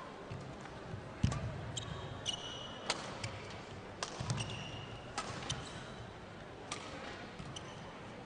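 A badminton rally: a shuttlecock struck sharply by rackets about five times, a second or so apart, with short high squeaks of court shoes on the mat between shots.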